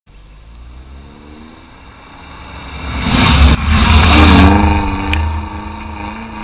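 A vehicle engine revving, growing louder to a peak about three to four and a half seconds in, with its pitch rising and falling, then easing off.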